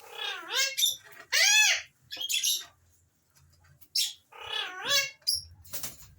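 Alexandrine parakeet vocalizing: a run of loud, high-pitched calls whose pitch arches up and down, in two clusters a little over a second apart.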